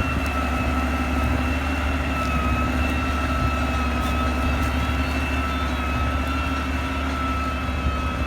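Hürlimann 468 tractor's diesel engine running steadily under ploughing load, a deep even hum with a steady high whine over it.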